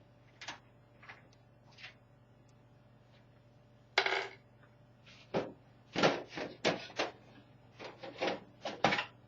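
Side panel of a Floston Genesis PC case being handled and taken off: a few light taps at first, then from about four seconds in a quick run of sharper knocks and clatters.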